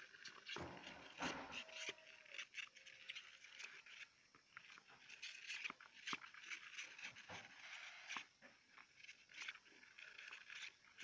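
Faint, irregular scratching and scrabbling of a mother hamster and her pups' claws on a plastic tub, with many small clicks.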